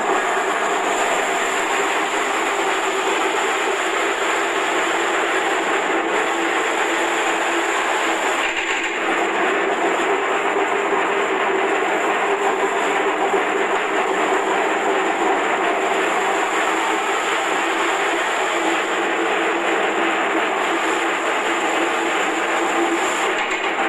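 Electric vegetable cutting machine with a belt-driven motor, running steadily while carrots are fed through it and shredded into julienne strips. A faint high whine rides over the machine noise.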